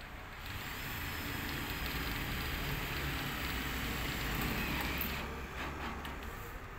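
Plastic tarpaulin rustling and crinkling as it is pulled and smoothed over a truck body's tarp hoops. It swells for a few seconds and then eases off, with a low rumble underneath.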